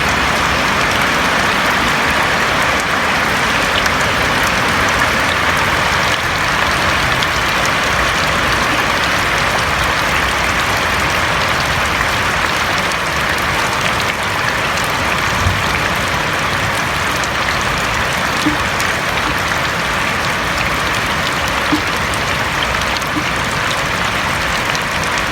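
Steady rain falling on a roof: a dense, even patter with scattered sharper drop ticks.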